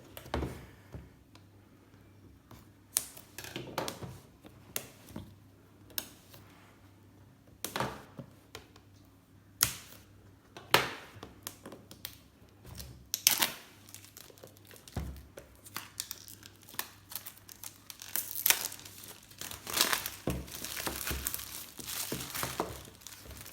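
Packaging on a new smartphone's retail box being torn and crinkled by hand, with scattered sharp clicks and taps as the box is handled. The crinkling grows denser and more continuous over the last few seconds.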